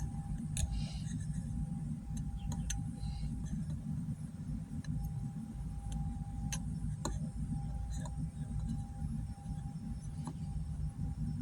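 Scattered light clicks and clinks of small metal parts and tools being handled while the fork oil level is checked, over a steady low hum and a faint steady tone.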